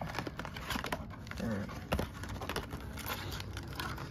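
Rustling, crinkling and small clicks of a Pokémon card booster box's packaging being handled and opened.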